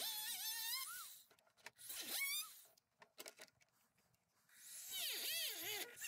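Dremel rotary tool cutting a plastic chassis brace: its motor whine wavers up and down in pitch as the bit loads in the plastic. It comes in three bursts, with a few ticks and a short lull between them.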